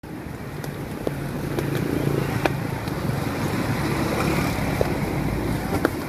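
Street ambience with motor vehicle engines running steadily, a low hum under a dense noise, and a few sharp clicks.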